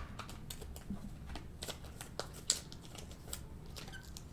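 Faint, irregular soft clicks and slides of glossy Panini Prizm football cards being handled and flipped through one by one.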